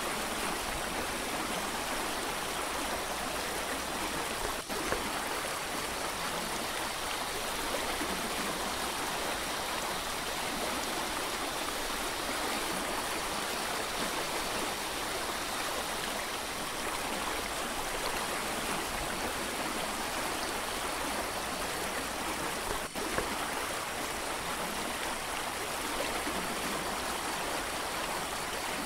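Mountain creek rushing steadily over rocks: an even, unbroken sound of running water.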